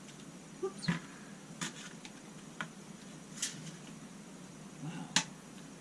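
Metal serving utensils clinking and scraping against a glass baking dish as a portion of chicken pot pie is cut and lifted out: about five sharp, brief clinks spread apart, the loudest a little past three seconds and about five seconds in.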